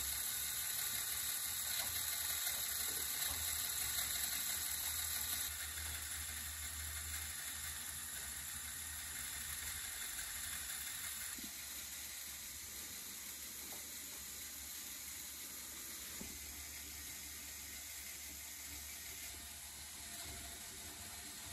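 LEGO Technic ski lift running: its small electric motor and plastic pulley wheels make a steady, quiet whirring hiss as the string cable moves over them. The level drops in steps about five, eleven and nineteen seconds in.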